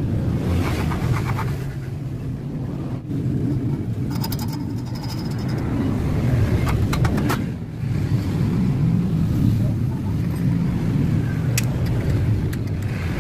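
A steady low mechanical rumble, like a running engine or traffic, with a few sharp metallic clicks and a short rattle as the slotted steel angle frame is handled.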